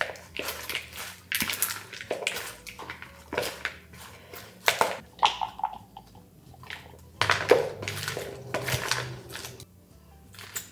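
Salad leaves being tossed with metal tongs in a large bowl: irregular rustling and crunching with short clicks of the tongs against the bowl, and a louder stretch of scraping and tipping-in about seven seconds in.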